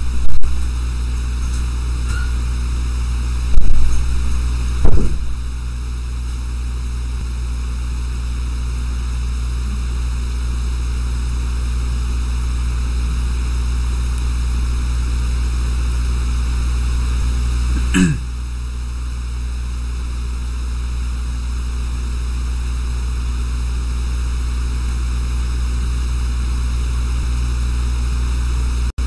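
Steady low electrical hum in the karaoke audio chain, with a few sharp thumps in the first five seconds and one more about 18 seconds in.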